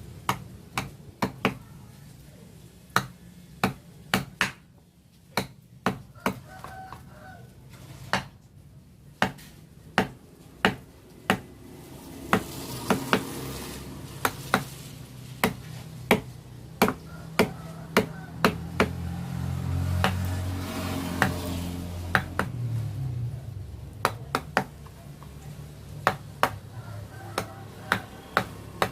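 Wooden mallet tapping a carving chisel into a wooden name board, sharp knocks about one to two a second. A low hum underneath grows louder in the middle, then fades.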